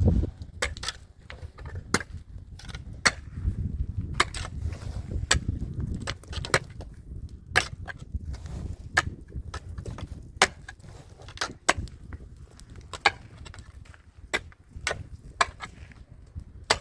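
Sharp knocks or clicks repeating irregularly, roughly once a second, over a steady low rumble.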